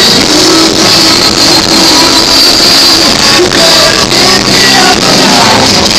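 Live rock band music played loud in a large hall, with some singing. The recording is overloaded and distorted.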